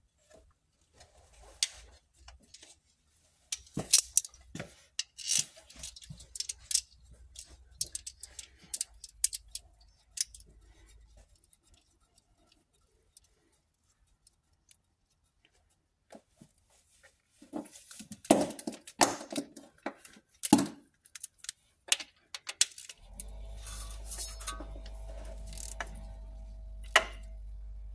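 Irregular metallic clicks, clinks and knocks of timing gears and a wrench being handled at the front of a VW EA888 2.0 TSI engine, with a quiet spell in the middle. Near the end a steady low hum starts and keeps on.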